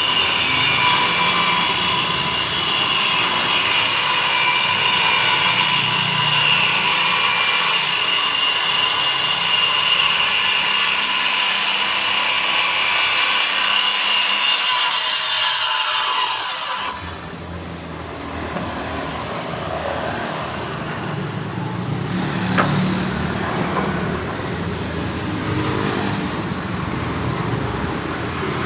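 Circular saw running and cutting wood, a loud high whine that wavers in pitch as the blade works through the board. It stops abruptly about two-thirds of the way through, leaving quieter mixed background noise with a few knocks.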